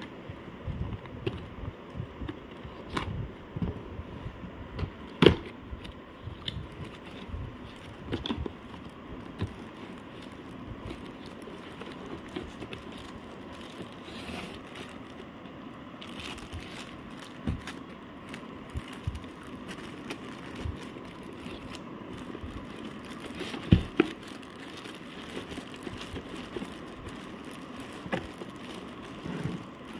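Product packaging being opened and handled by hand: crinkling and tearing of the wrapping, with scattered taps and knocks, two of them louder, about five seconds in and again near 24 seconds.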